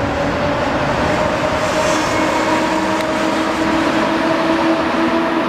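EP07 electric locomotive hauling a train of passenger coaches past, pulling out of the station. A steady rumble with a whine that slowly rises in pitch as it gathers speed.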